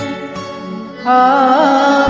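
Karaoke backing music of a Hindi song, quieter for the first second. About a second in, a louder held melodic note with a wavering pitch enters.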